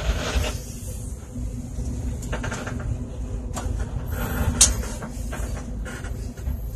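Bus engine running at low speed, heard from inside the passenger cabin, with scattered clicks and rattles from the bus interior. The sharpest knock comes a little over four and a half seconds in.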